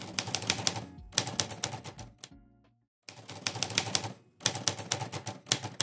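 Rapid typewriter key clicks, a typing sound effect, in quick runs that pause for about a second near the middle and then resume, over soft background music.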